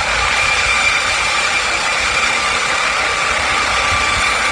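MD Explorer turbine helicopter hovering: a loud, steady turbine whine with two held tones over an even rush of air, cutting off abruptly near the end.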